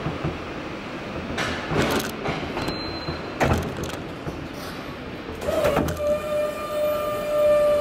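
Hyster forklift moving through a warehouse: steady machine noise with a few sharp knocks and clatters, then a steady high whine that starts about five and a half seconds in and holds.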